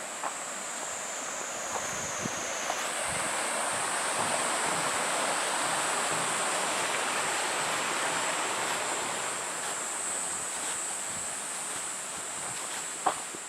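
Waterfall: a steady, even rush of falling water, with a thin, steady high whine above it and a sharp click near the end.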